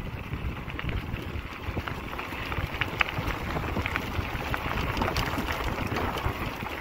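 Wind rushing over the microphone and bicycle tyres crunching over a gravel road while riding, with scattered sharp ticks of small stones.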